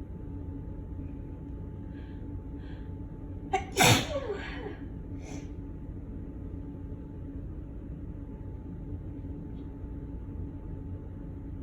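A woman sneezes once, loudly, about four seconds in, after two short in-breaths; the voiced part of the sneeze falls in pitch, and a short breathy sound follows. It is an allergic sneeze set off by cigarette smoke.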